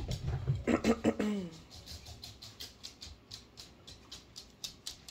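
A dog's claws clicking on a hardwood floor as it walks, about three sharp clicks a second, starting about two seconds in.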